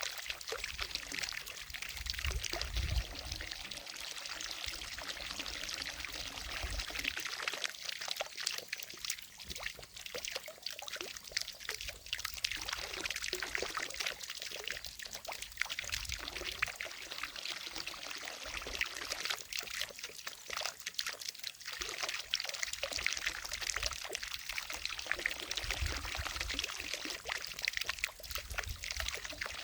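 Water from a fountain falling and splashing into a lake, a steady pouring hiss with occasional low rumbles.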